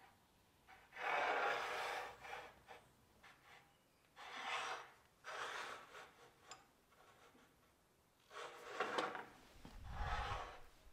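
A metal height gauge being slid and repositioned on the bench top, making about five short scraping rubs of under a second each, with a low bump near the end.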